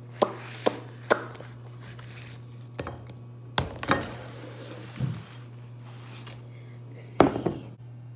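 Several sharp taps and knocks of a drinking glass and tableware being handled on a table, spaced irregularly, over a steady low hum.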